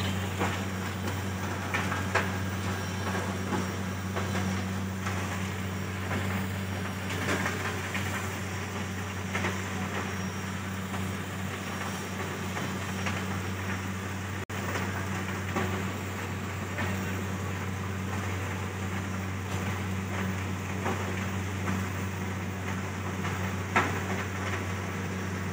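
Steady low hum of sugar factory machinery and tractor engines in the cane yard, with scattered knocks and clatter.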